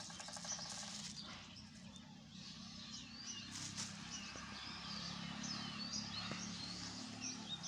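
Several small birds chirping and calling, short quick notes overlapping throughout, over a low steady hum.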